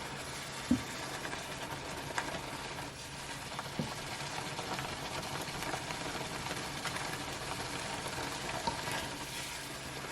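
Food frying in oil in a pan: a steady sizzle with small crackles, and a sharp knock about a second in.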